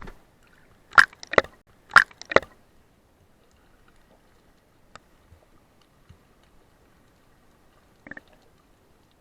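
Two pairs of sharp knocks or clicks about a second into the clip, each pair a little under half a second apart, then a single fainter knock near the end.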